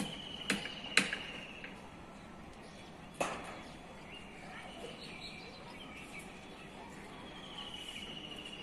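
Sharp knocks, about two a second near the start with the loudest about a second in and one more about three seconds in. Over them a bird gives a rapid high trill twice, once at the start and again near the end.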